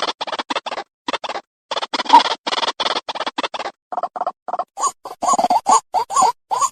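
White-breasted waterhen (ruak-ruak) call, a fast run of harsh, croaking repeated notes at about five or six a second, broken by short pauses. After about five seconds the notes turn louder and more tonal.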